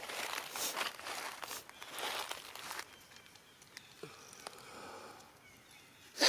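Dry rustling and crinkling in several bursts over the first three seconds, then fainter scattered clicks.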